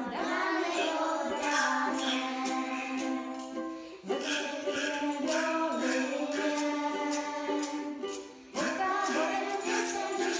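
A group of children singing a song in Czech together over instrumental accompaniment with a steady light percussion beat. The sung lines break briefly about four seconds in and again about eight and a half seconds in.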